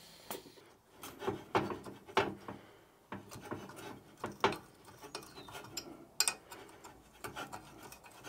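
Ring spanner turning a nut welded onto a seized stud, the stud creaking and scraping as it works loose from a cast aluminium crankcase. A run of sharp clicks and grating rubs comes first, then lighter rubbing with the odd single click.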